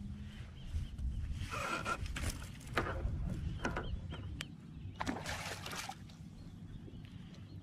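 Hooked trout thrashing and splashing at the water's surface beside a kayak in several short bursts while it is played to the net, over a low steady rumble.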